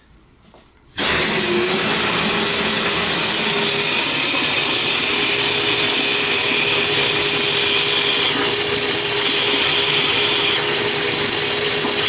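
Water rushing from a bathtub spout, turned on about a second in and running steadily, with a thin steady whistle from the High Sierra low-flow shower head above. The owner puts the whistle down to the tub flow pulling air down the shower pipe and mixing it into the stream, because of the way the piping runs in the wall.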